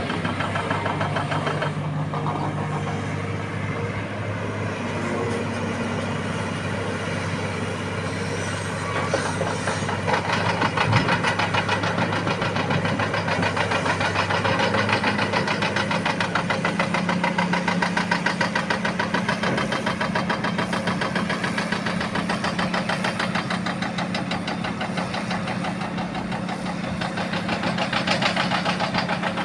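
Hitachi Zaxis 330 excavator's diesel engine running steadily while working, with a constant clatter. About halfway through, the engine note steps up to a higher pitch and holds there; a single short knock sounds about a third of the way in.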